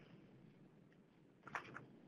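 Near silence: faint room tone, with one brief faint sound about one and a half seconds in.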